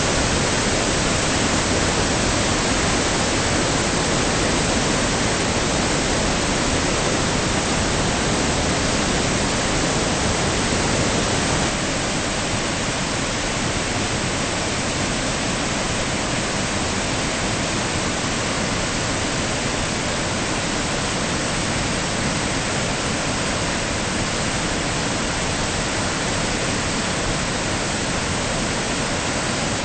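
Flooded river in spate: a steady rush of muddy whitewater surging over boulders and through rapids. It becomes slightly quieter about twelve seconds in.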